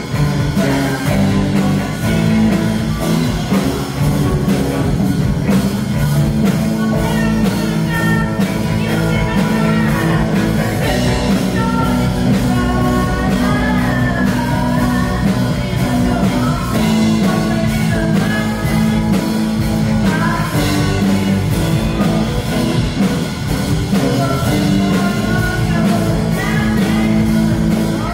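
Rock band playing a song with a singer over a steady drum beat and guitars.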